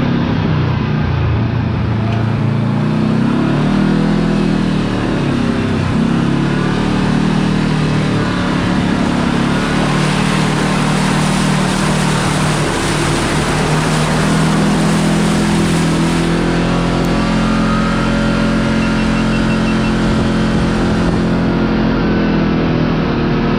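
Kawasaki Teryx KRX side-by-side driving, its engine revving up and down and then holding steadier, with a rushing hiss over it for much of the time.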